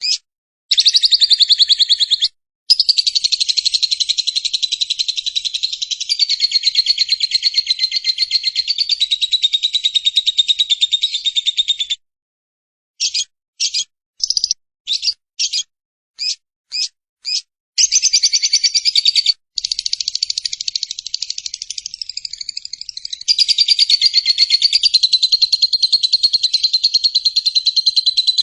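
Cage bird's long, very rapid high chattering trill, given in long unbroken runs, with a stretch of short separate notes about halfway through before the chatter resumes.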